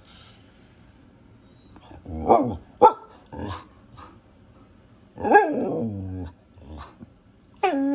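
Siberian husky vocalising in a string of short barks and drawn-out 'talking' calls that slide in pitch. It starts after a couple of quiet seconds, and the longest call, about a second long and falling in pitch, comes past the middle.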